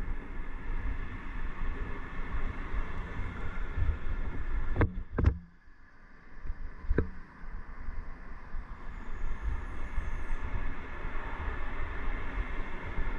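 Steady rumble of wind and road noise while riding a bicycle along a city avenue with traffic, and three sharp knocks about five and seven seconds in, with a brief lull after the second.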